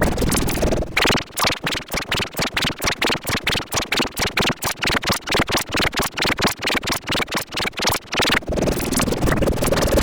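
Electronically edited remix sound: a sample chopped into a rapid stutter of about six or seven repeats a second, running from about a second in until shortly before the end, between stretches of unbroken sound.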